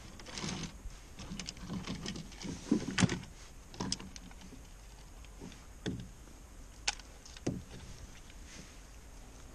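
Scattered sharp knocks and clicks of a caught bass and fishing gear being handled against the floor of a canoe, with light rubbing between them. The loudest knock comes about three seconds in, and the last two seconds are quieter.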